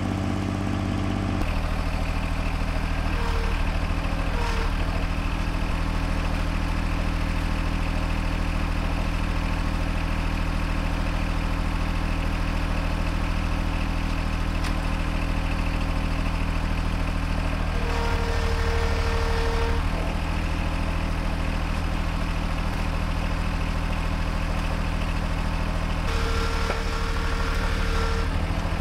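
Three-cylinder diesel engine of a John Deere 755 compact tractor running steadily. Its note changes about a second in, and a higher whine comes in twice for a couple of seconds each.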